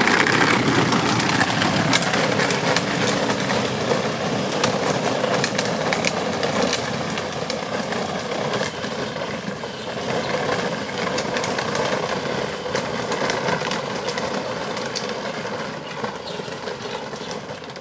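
Battery-powered ride-on toy ATV driving along, its electric drive motors and gearboxes giving a steady whine over the rumble of its plastic wheels on wet pavement.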